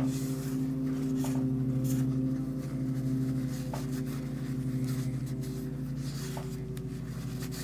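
A steady low hum of several held tones, with a few faint short scrapes.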